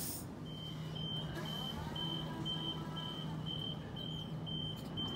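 Sydney Trains Waratah double-deck train standing at the platform with its equipment humming steadily, while a high electronic door warning beep repeats about twice a second, starting about half a second in.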